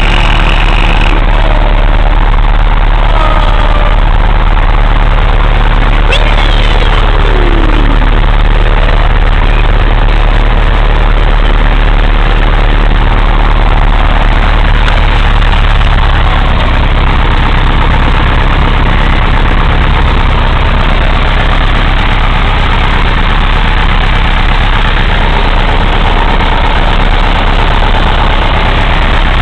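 Piper PA-22 Tri-Pacer's four-cylinder Lycoming engine and propeller running steadily, heard loud from inside the small cabin.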